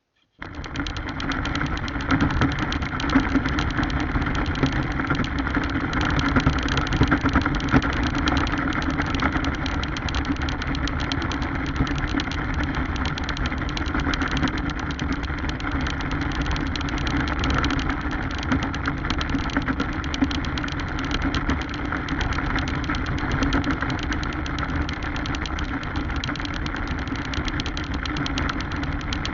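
Radio-controlled car driving, heard through its onboard action camera: a steady motor and drivetrain hum with a continuous fast rattle over the ground. It cuts in abruptly just after the start.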